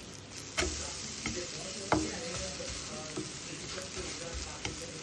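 Omelette frying and sizzling in a non-stick pan while a slotted spatula presses and scrapes it, with about five sharp taps of the spatula against the pan, the loudest about two seconds in.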